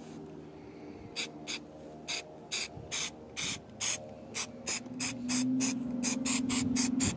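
Aerosol can of high-strength spray adhesive fired in about sixteen short hissing spurts, two to three a second and quicker near the end, as glue is sprayed along the carpet edge. A low steady hum rises under the last few spurts.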